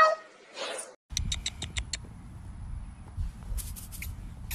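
A kitten's meow, cut off just after the start. Then a low rumble of wind on the microphone, with a quick run of short, high squeaky chirps, and a few more near the end.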